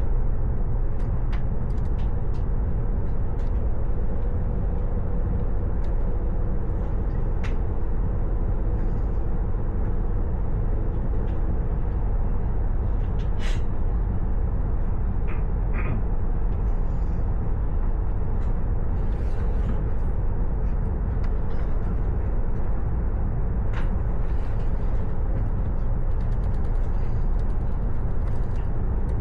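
Steady low rumble of a running vehicle, with scattered light clicks and a couple of brief high squeaks about halfway through.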